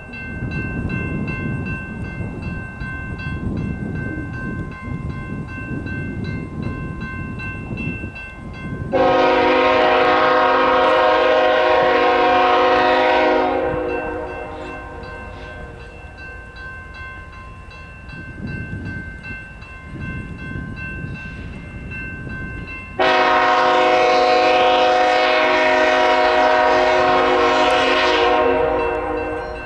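CSX freight locomotive's air horn sounding two long blasts, each about four to five seconds, roughly ten seconds apart, over the low rumble of the train.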